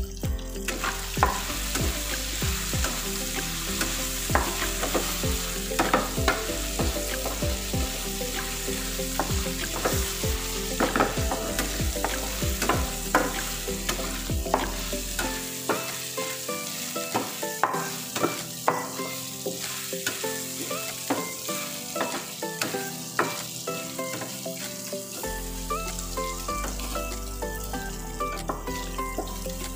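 Marinated pork tapa sizzling in a frying pan, with frequent scrapes and clicks of a metal spatula against the pan as the meat is stirred.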